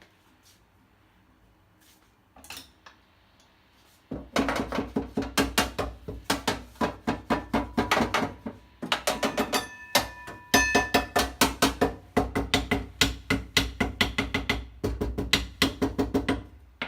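Rapid, fast tapping on a rusted metal ring soaked with cooking oil, about four ringing knocks a second in several runs with short breaks, to free the seized part. The tapping starts about four seconds in.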